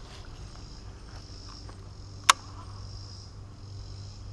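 Steady chorus of insects in summer woodland, with one sharp click a little over two seconds in.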